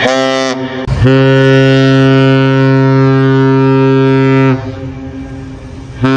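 Synthesized deep ship's horn of a Fednav Great Lakes cargo freighter: the tail of a short blast, then one long steady blast of about three and a half seconds, and a new short blast starting near the end.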